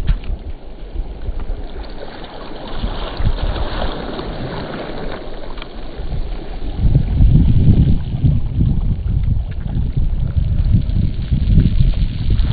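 Wind buffeting the microphone in uneven gusts of low rumble, growing stronger about halfway through.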